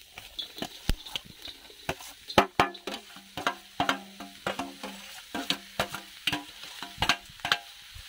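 Chopped onions dropping into a hot iron kadhai and starting to sizzle, with many irregular knocks and clanks of a steel bowl and ladle against the pan, some of them ringing briefly.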